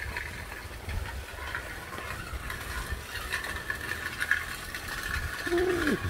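Road noise inside a moving car: a steady low rumble with a hiss above it.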